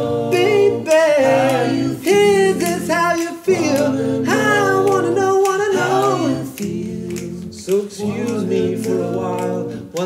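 Male a cappella group singing in close harmony: a lead voice gliding over layered backing voices and a steady sung bass line, a little softer in the last few seconds.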